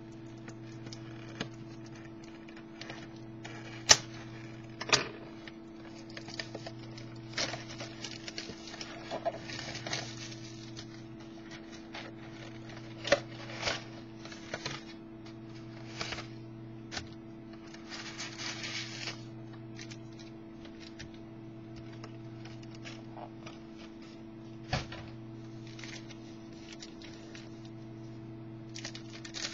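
A box of trading-card packs being handled and opened: scattered taps, clicks and crinkling of cardboard and pack wrappers, with a longer rustle about 18 seconds in, over a steady low hum.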